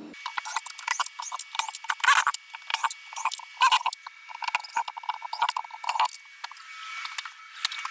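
Demolition noise from shower panels being pried and ripped out: a fast, irregular run of cracking, scraping and squeaking, thin-sounding with no low end.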